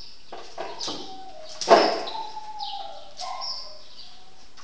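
Small birds chirping in short, quick, falling calls. About two seconds in a loud sudden sound is followed by a thin whine that slides down in pitch.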